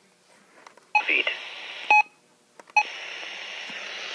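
Weather radio beeping three times at its button presses, about a second apart, each a short two-pitch beep. After the first and third beeps its speaker opens onto a steady hiss of broadcast static.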